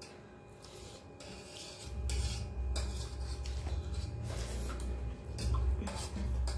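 Eating by hand from a steel plate: fingers scraping and mixing rice on the metal, chewing, and a few short clicks. About two seconds in, a loud low rumble comes in and stays.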